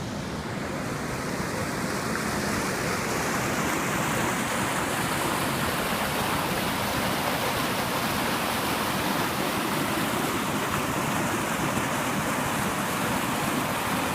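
Ouachita River water rushing steadily, building a little louder over the first few seconds.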